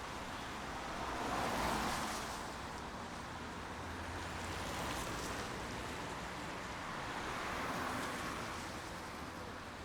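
Steady rain falling, a continuous even hiss that swells gently about a second and a half in and again near eight seconds.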